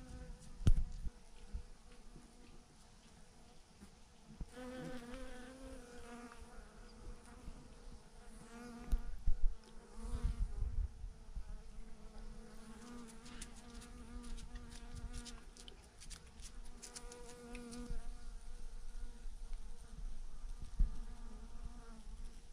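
Bees buzzing around a large clump of thousands of bees hanging on a branch. Single bees fly close past the microphone with a buzz that swells and fades several times. A couple of low thumps on the microphone come about a second in and again around nine to ten seconds in.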